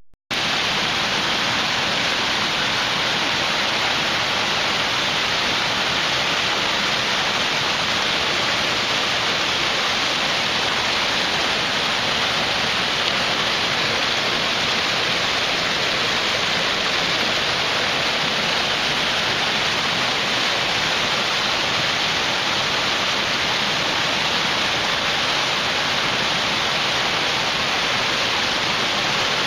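A mountain stream rushing over rocks in a small cascade: a steady rushing of white water that cuts in suddenly just after the start.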